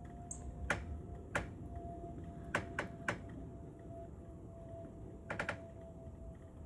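A handful of sharp clicks or taps at uneven intervals, some in quick clusters, over a faint steady hum.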